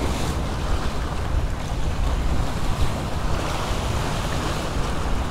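Seawater washing and splashing against the granite rocks of a jetty, with wind buffeting the microphone in a steady low rumble.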